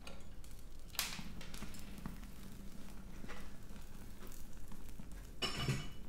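Handling at a hot electric furnace: a sharp knock about a second in and a few light clicks, then a louder scraping thump near the end as the insulating-brick door is swung shut. A steady low hum runs underneath.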